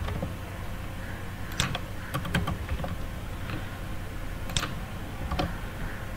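A few scattered computer keyboard key presses, short sharp clicks in small clusters, over a faint steady low hum.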